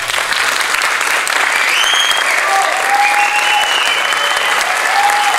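Audience applauding steadily, with a few cheers and whistles rising over the clapping from about two seconds in.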